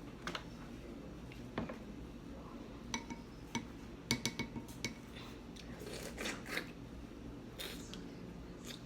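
Crab being cracked and picked apart for eating: scattered sharp clicks and cracks of shell, with a few short ringing clinks against a dish about three to four seconds in.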